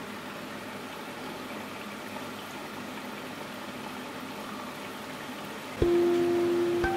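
A steady, even hiss for the first six seconds. About six seconds in, a clear sustained note starts suddenly and a higher note follows a second later: the start of a short melody.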